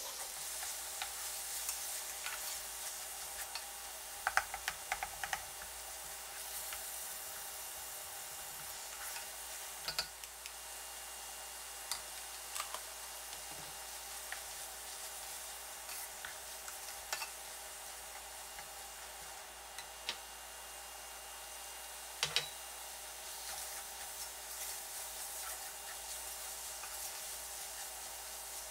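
Minced meat and onion sizzling steadily in a nonstick frying pan while a wooden spoon stirs and scrapes through it, with scattered light knocks of the spoon against the pan.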